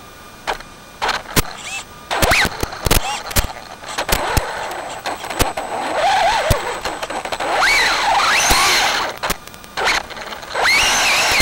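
Brushless electric motor of a Traxxas 4x4 Slash VXL RC truck whining up and down in pitch as it speeds up and slows, with many quick clicks and knocks as the chassis bounces over the ground. It is quieter for the first couple of seconds and briefly drops away again just before the end.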